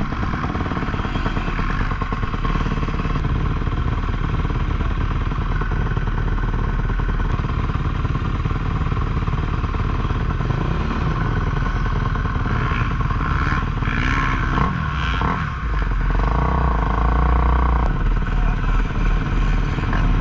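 Kawasaki KX250F four-stroke single-cylinder motocross engine, heard on board, running hard and revving with the throttle. The pitch shifts about twelve seconds in, drops briefly, then holds steady and louder for a couple of seconds.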